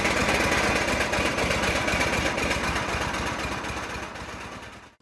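An engine running steadily with a rapid, even low pulse, fading out over the last second.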